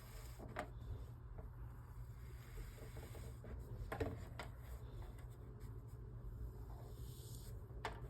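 Kinetic sand being squished and crushed: soft, gritty rubbing and scraping, broken by a few short crisp crunches, the loudest about halfway through. A steady low hum lies underneath.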